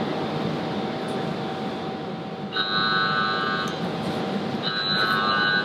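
Steady kitchen background noise with a faint constant hum. About two and a half seconds in, an electronic alarm tone sounds for about a second, then sounds again for about a second near the end.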